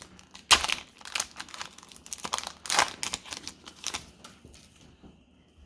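Plastic wrapper of a trading card pack crinkling and tearing as it is opened by hand, a quick run of crackles loudest about half a second in that dies away after about four seconds.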